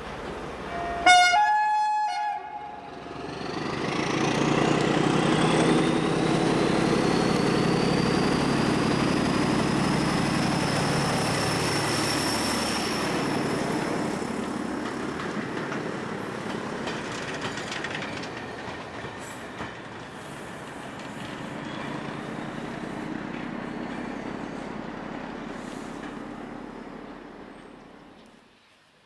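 British Rail Class 14 diesel-hydraulic locomotive D9555 sounds a short two-note horn about a second in, then passes close with its diesel engine running loud and a rising whine. Its goods wagons follow, rumbling and clicking over the rail joints, before the sound fades out near the end.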